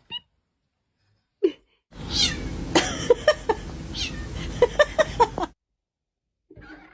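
A cat meowing: one short meow about a second and a half in, then a run of short meows and chirps over a steady hiss from about two seconds in until about five and a half.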